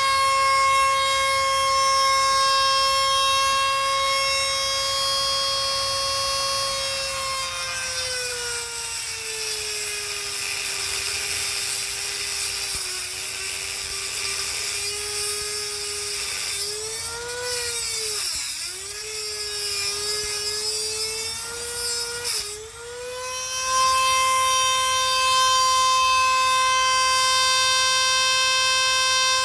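An electric power tool's motor whining steadily. About eight seconds in, its pitch sags and wavers for some fifteen seconds as the motor bogs down under load, then it climbs back to its free-running pitch.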